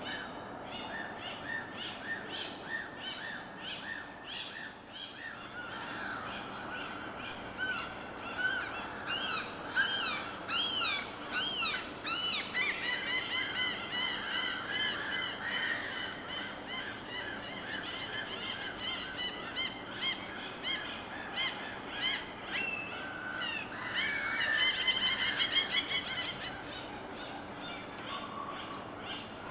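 Birds calling in quick series of short, repeated chirping notes over a steady background hiss. The calling grows louder and busier about eight to twelve seconds in and again about twenty-four to twenty-six seconds in.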